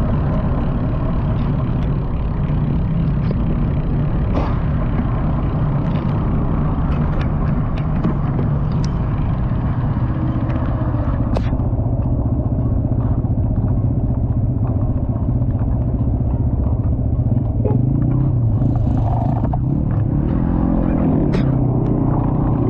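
Vehicle engine running steadily while on the move, with a few light clicks and the engine's pitch shifting near the end.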